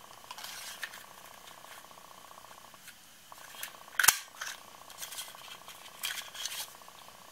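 Heart Border paper punch snapping through red cardstock with one sharp click about four seconds in. Around it, softer rustling as the paper strip and punch are handled.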